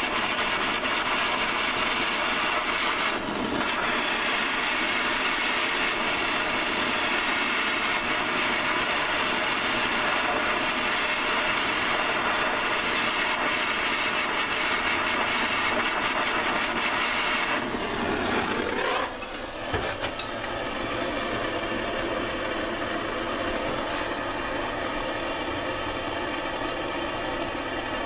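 Handheld gas torch burning with a steady hissing flame, heating the bent steel of a draw knife. About two-thirds of the way through the sound shifts with a brief sweep and settles a little quieter.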